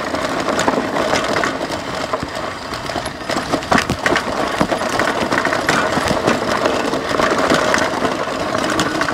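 Lectric XP 3.0 e-bike ridden over a rocky dirt trail: its 20-inch by 3-inch fat tyres crunch over gravel and the bike rattles and clicks over the bumps, over a steady hum.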